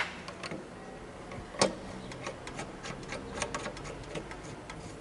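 Irregular light metallic clicks and taps from tools and suspension parts being handled while a rear shock absorber is fitted, with one sharper click about a second and a half in.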